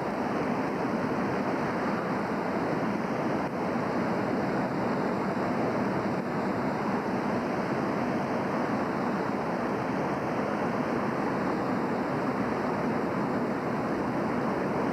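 Steady rushing of the flooded North Fork Wilson River, an even roar of fast-moving floodwater.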